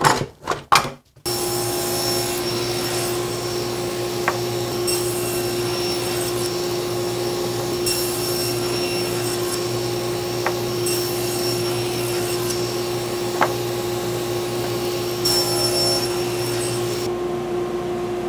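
A cordless drill-driver runs in a few short bursts, driving a screw into the sled's fence. About a second in, a loud steady whir of running shop machinery takes over, holding one constant hum throughout, with a few faint clicks.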